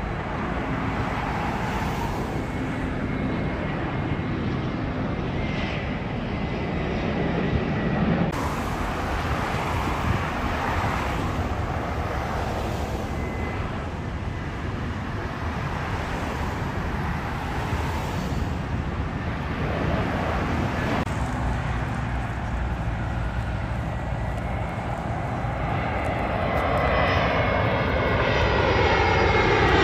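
Twin-engine jet airliners on final approach, their engines giving a steady rushing noise. Near the end one comes in close overhead, growing louder with a sweeping, whooshing tone as it passes.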